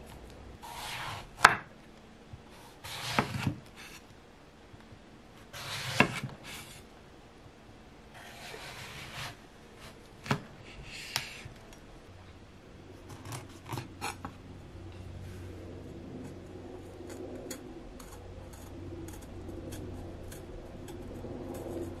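Kitchen knife cutting eggplant and green peppers on a wooden cutting board: a handful of sharp chops and slicing strokes through the first half, then quieter trimming over a steady low hum of outside bustle.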